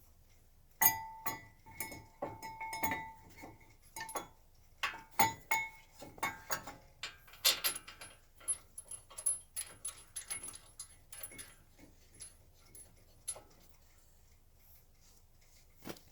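Metal tools and parts being handled: an irregular run of clinks and knocks, some with a short metallic ring, then one more clink near the end.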